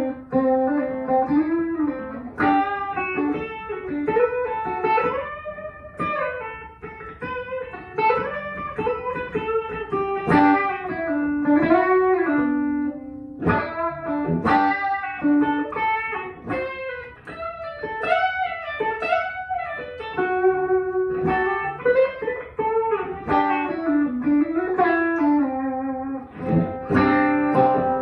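Electric guitar played through a pedalboard: a single-note lead line with many string bends and vibrato, then a chord struck near the end and left ringing.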